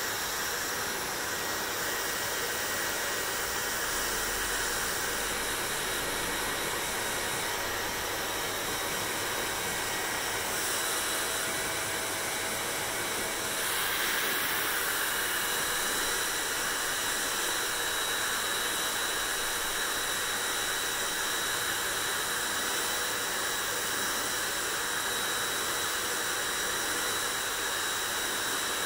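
Hair dryer running steadily: an even rush of blown air with a faint high motor whine over it, a little louder from about halfway through.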